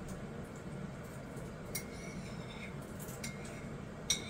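Quiet room tone with a steady low hum, broken by a few faint, short clicks, the loudest near the end.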